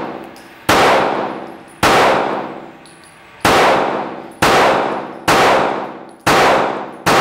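Ruger Security 9 Compact 9mm pistol firing Federal HST hollow-point rounds in rapid fire: seven shots about a second apart, each ringing off in the echo of an indoor range. The pistol cycles the hollow points without a hitch.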